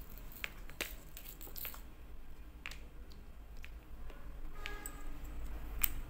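Scattered light clicks and taps of small items being handled and set down on a cutting mat, including a small glass screw jar with a metal cap, with the sharpest click near the end.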